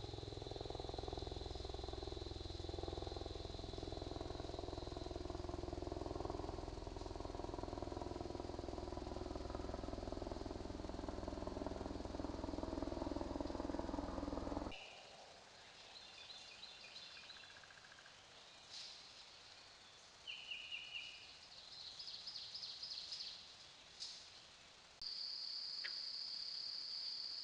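Night ambience from trail cameras. For the first half a steady low rumble runs with a thin high insect drone above it. After a sudden cut the sound goes much quieter, with short pulsed insect chirps, and near the end a steady high-pitched cricket trill sets in.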